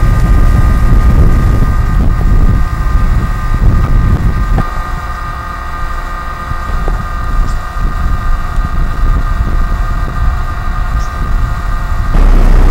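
Wind buffeting the microphone, an uneven low rumble over a steady high whine. The rumble eases about four seconds in and comes back hard near the end.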